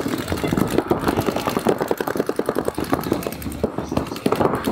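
Paintball markers firing in rapid, continuous streams of shots, many pops a second, with overlapping fire from more than one gun.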